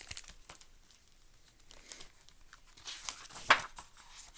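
A hardcover picture book being handled and opened: its glossy covered binding crinkling and pages turning, in a series of sharp rustles and clicks, the loudest about three and a half seconds in.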